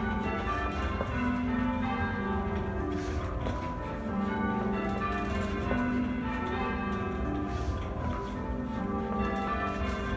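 Church bells rung in changes by a band of ringers on ropes, heard from the ringing chamber below the bells. The bells strike one after another in an unbroken sequence, each note ringing on under the next.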